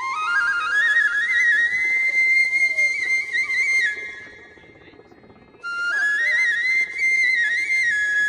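Background music: a flute melody climbing in steps to a high held note, with small ornaments. It breaks off about four seconds in and comes back a second and a half later.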